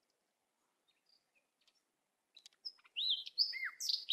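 Near silence for about two and a half seconds, then a small bird chirping, a string of short high calls that rise and fall in pitch.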